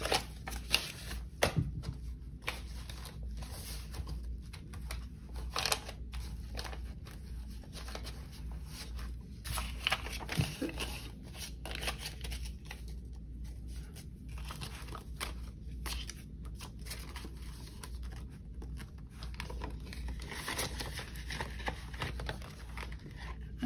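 Paper banknotes being handled and counted by hand: irregular rustling, crinkling and flicking of bills.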